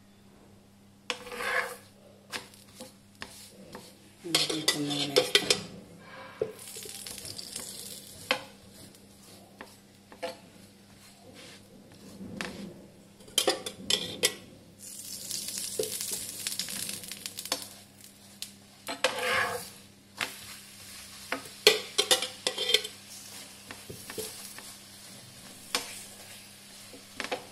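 A layered methi paratha frying on a hot tawa, with oil sizzling as it is spread on. The sizzle comes and goes, loudest from about 15 to 20 seconds in, over repeated clattering and scraping on the pan as the paratha is turned.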